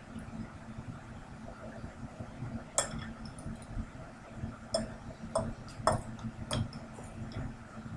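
Metal fork clinking against a ceramic bowl about five times as eggs are scooped up, over a low steady hum.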